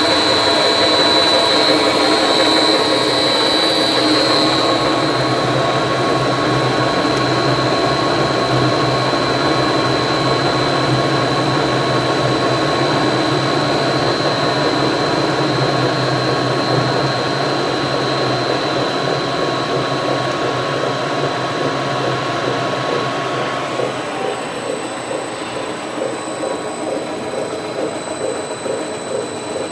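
Scott stainless-steel ribbon/paddle mixer running empty on a variable speed drive: a steady mechanical running noise from the motor and turning shaft, with a high steady whine. About three-quarters of the way through the high whine fades and the running gets a little quieter.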